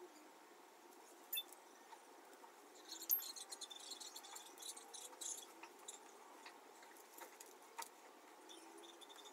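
Faint crinkling and clicking of paper being handled for papier-mâché, densest between about three and five and a half seconds in, with a few single clicks either side. A faint, high, dotted chirping runs under part of it.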